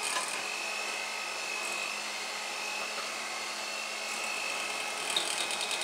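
Electric hand mixer running steadily with a constant high whine as its beaters churn thick cake batter in a bowl, with a brief rattling near the end.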